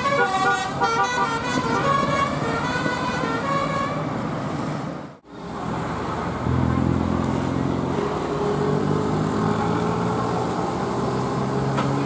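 A tour bus's telolet musical air horn plays a quick multi-note tune until a cut about five seconds in. After that a bus engine runs with a steady drone as a bus approaches.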